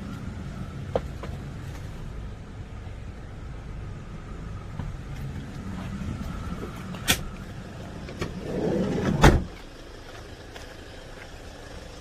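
Hyundai H-1 Starex's sliding side door rolling along its track and shutting with one solid thump about nine seconds in, after a few light clicks of the handle and latch. Before it a low steady rumble fills the van's cabin, and it drops away once the door is shut.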